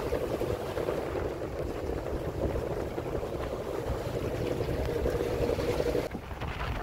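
Sailboat's inboard engine running steadily under way, a constant drone with wind rumbling on the microphone. The drone drops away abruptly about six seconds in.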